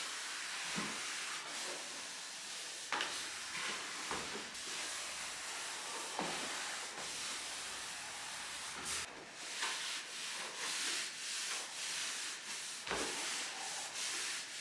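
Hand applicator wiping wood stain onto sanded hardwood floorboards in repeated back-and-forth strokes: a scratchy swishing rub, with a stroke about every second in the second half.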